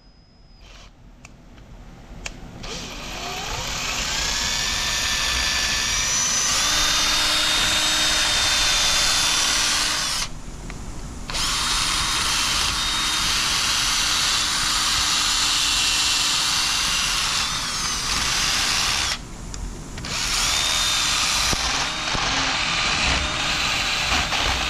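Power tool, like a drill, running with a cutting bit to clean up the chamfer on a stainless steel bung, a steady whine with a scraping edge. It builds up over the first few seconds and stops briefly twice.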